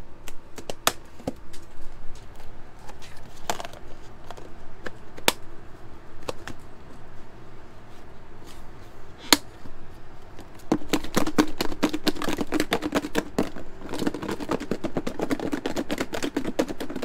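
A Rubbermaid plastic food container being handled, with a few scattered sharp clicks as its lid is pressed on. From about eleven seconds in comes a dense, rapid rattling: sauced chicken wings being shaken in the closed container to coat them.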